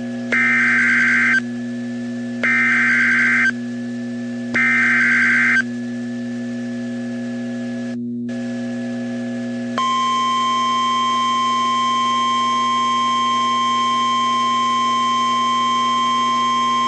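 NOAA Weather Radio Emergency Alert System alert: three buzzy one-second bursts of SAME header data tones, a second apart, then about ten seconds in the steady warning alarm tone starts and holds. A constant low hum from the radio runs underneath, with a short dropout just before the alarm tone.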